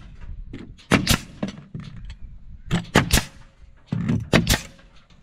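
Pneumatic coil nailer firing nails into wood framing: sharp cracks, mostly in close pairs, about three times.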